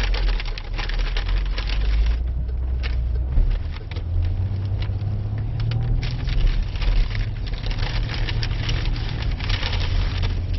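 Car engine and road noise heard from inside the cabin as the car drives off. The engine note rises about four seconds in, then holds steady.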